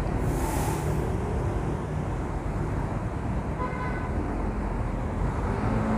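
Steady low rumble of road traffic, with a brief hiss just after the start and a short high tone about three and a half seconds in.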